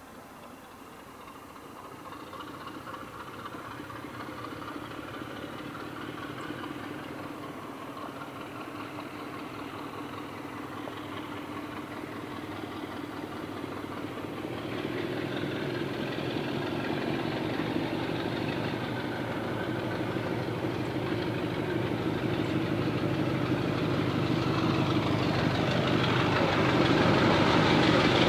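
BR Class 33 'Crompton' diesel locomotive, its Sulzer eight-cylinder engine running as it pulls a train of coaches toward the listener. The engine sound grows steadily louder, with a clear rise about halfway through.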